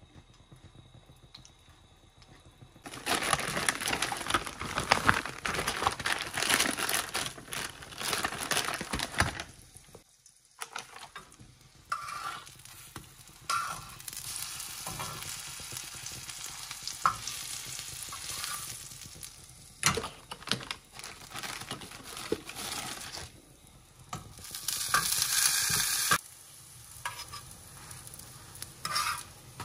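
Food sizzling in a hot frying pan, starting about three seconds in, loudest in two spells with softer frying between, and a few sharp clicks of a utensil against the pan.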